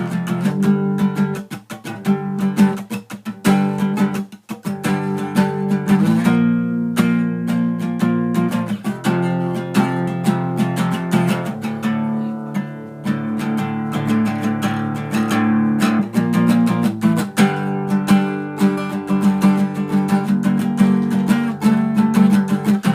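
Acoustic guitar strumming chords, with a few short breaks in the strumming about two to five seconds in.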